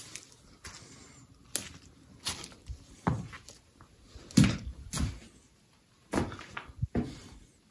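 A string of irregular knocks and short thuds, the loudest about four and a half seconds in.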